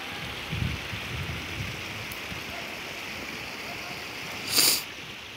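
River water flowing steadily over a stony bed, a continuous rushing hiss. A few low bumps in the first couple of seconds, and a short sharp hiss about four and a half seconds in.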